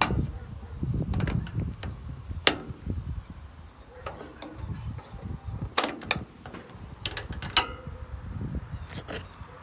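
Metal door latches on an aluminium Impact dog crate being worked by hand: a string of sharp, irregular metallic clicks and clacks, the loudest about two and a half and six seconds in, over low handling rumble.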